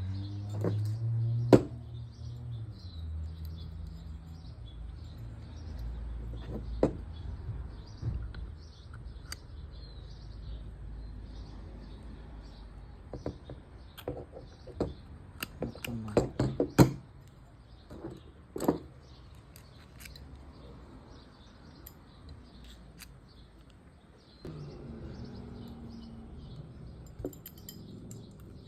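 Scattered clicks and light knocks of Penn fishing reel parts being handled, with a cluster of sharper clicks about two-thirds of the way through. Birds chirp faintly in the background.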